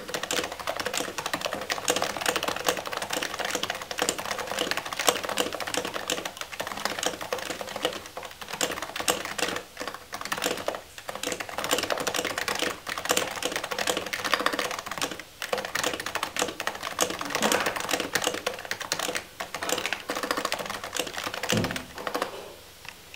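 Continuous fast typing on a Happy Hacking Keyboard Professional Type-S with silenced 45 g Topre electrostatic-capacitive switches: rapid, dense key presses with a few brief pauses. There is a single low thump near the end.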